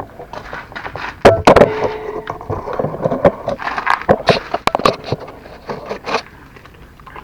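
Irregular metal clanks and knocks from tools and scooter suspension parts being handled and worked loose. The loudest come about a second and a half in, one ringing briefly, with another cluster a few seconds later before they die down.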